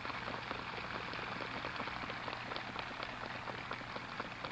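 Audience applauding: a dense, even patter of many hands clapping, over a steady low hum in the recording.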